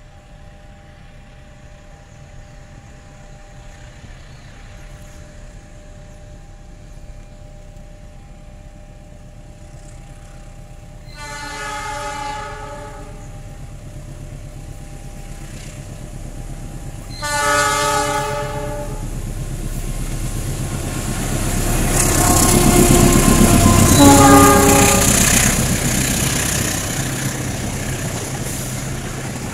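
A CC 206 diesel-electric locomotive blows a chord horn three times as it approaches: two blasts of about two seconds each, a few seconds apart, then a shorter third as it passes. Under the horn, the locomotive and its train of carriages grow louder into a rumble with rail clatter, loudest a little after the second blast, and then fade slightly.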